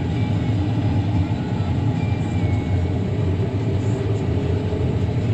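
Combine harvester running with a steady low rumble of engine and machinery.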